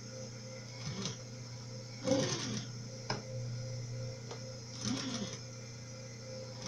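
Sewing machine stitching through layers of fabric and clear plastic, its motor running steadily and a little faster about halfway through. There are a few brief rustles as the work is shifted under the needle.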